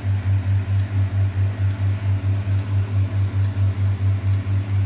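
Steady low electrical hum from mains-powered equipment, pulsing evenly about six to seven times a second.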